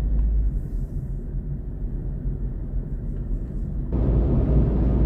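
Car road and engine noise heard from inside the cabin: a steady low rumble that gets louder and rougher about four seconds in.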